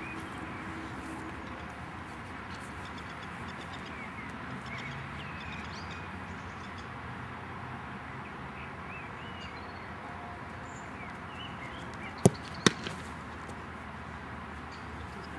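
Two sharp thuds of a football under half a second apart, the ball being struck and then caught in a goalkeeper's diving save. Behind them a steady outdoor hiss with faint bird chirps.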